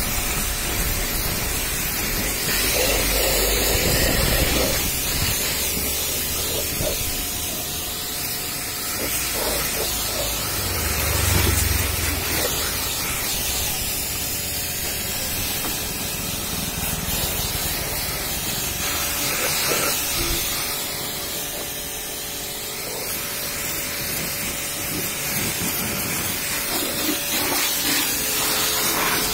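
Pressure-washer jet spraying water onto a car's body and wheel, a steady loud hiss of spray against the panels.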